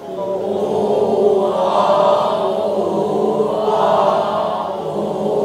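A group of language learners speaking together in unison, a chorus of voices chanting a phrase in a class drill, rising and falling in two swells.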